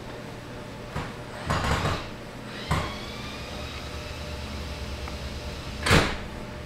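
A few knocks and short rustling bumps over a steady low hum, the loudest bump near the end.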